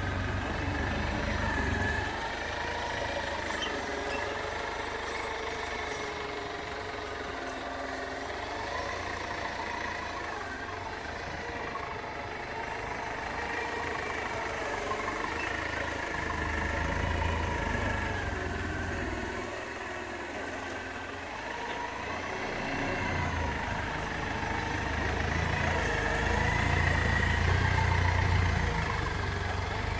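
Clark forklift's engine running as the truck drives and steers with a load of pallets, the revs and loudness rising and falling, loudest about 17 seconds in and again near the end.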